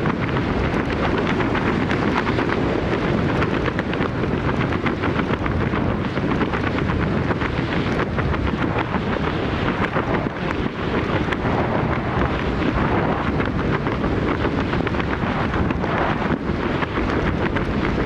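Rushing wind buffeting the helmet camera's microphone in a steady, heavy roar as a tandem skydiver descends under an open parachute.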